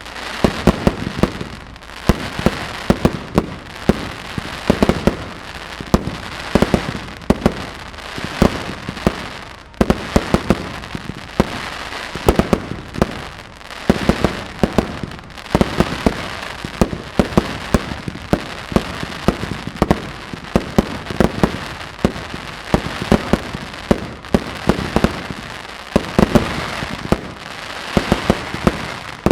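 Fireworks display going off in a continuous barrage: sharp bangs come several a second, in clusters, over a steady crackle.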